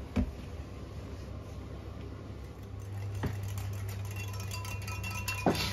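Metal whisk knocking and ringing against a glass measuring jug while blue jelly powder is dissolved in hot water: a few separate knocks, then faint ringing tones. A low steady hum comes in about three seconds in.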